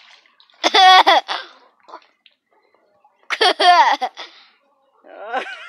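A girl laughing loudly in two bouts, about two and a half seconds apart.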